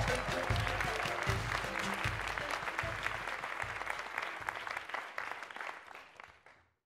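Audience clapping at the end of a dance performance, a dense patter of many hands that fades out to silence near the end.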